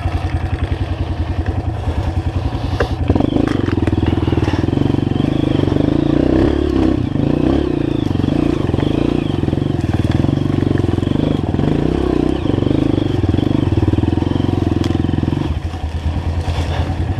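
Dirt-bike engine idling, then held at higher revs from about three seconds in, dropping back to idle near the end.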